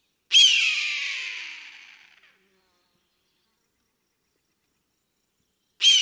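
Eagle scream: a high, shrill cry that falls in pitch and fades over about two seconds. A second scream of the same shape starts near the end.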